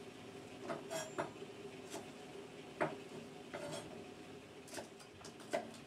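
Kitchen knife knocking on a plastic cutting board as the ends are cut off green beans: several sharp, irregular knocks.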